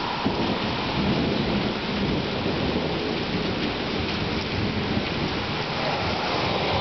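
Steady heavy rain in a thunderstorm, with a low rumble of thunder in the first few seconds.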